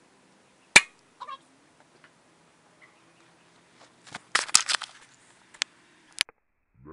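A single sharp crack about a second in, typical of a .177 pellet striking a soda-can target. A cluster of rattling clicks follows about four seconds in, with two more single clicks near the end.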